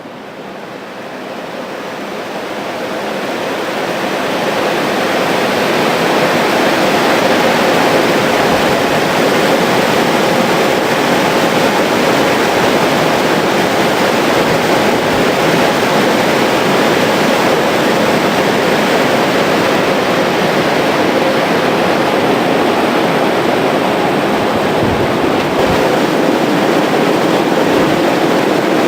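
Aeroacoustic wind tunnel airflow spinning up. The rush of air builds over about the first six seconds, then holds as a loud, steady rush with a faint steady hum beneath it.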